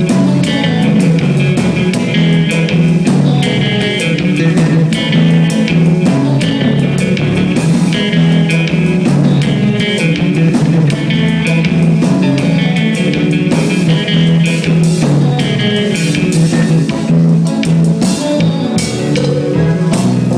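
Live band playing with guitar, bass and drum kit at a sound check, the drums keeping a steady beat.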